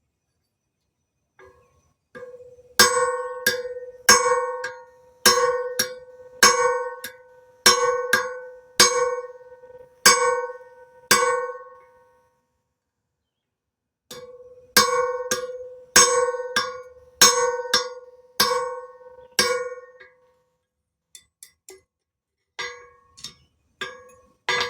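Hammer blows on hot steel over an anvil, each blow ringing out. They come in two steady runs of about one heavy blow a second, with a pause between, then a few lighter taps near the end.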